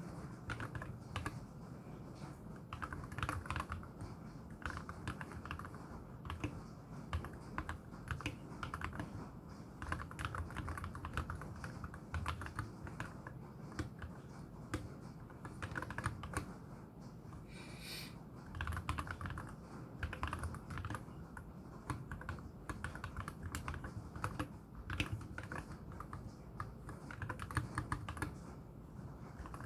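Steady, continuous typing on a MelGeek Z70 Ultra mechanical keyboard with lubed KTT Wine switches and tall MA-profile spherical keycaps. Each keystroke gives a low, deep, wood-block-like clack.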